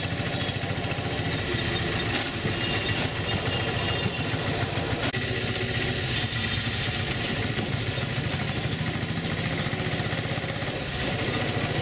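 Auto-rickshaw (tuk-tuk) engine running steadily as it drives along, heard from inside the open passenger cab.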